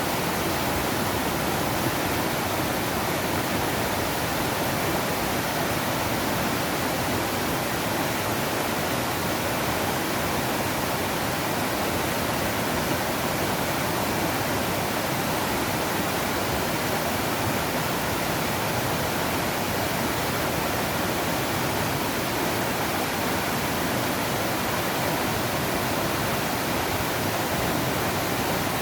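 A mountain stream in spate after days of heavy rain: a steady, loud rush of fast water over rocks.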